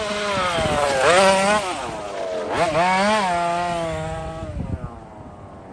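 Petrol RC car's small two-stroke engine revving hard and easing off as it drives, with sharp rises in pitch about a second in and again near three seconds in, then fading as the car moves away.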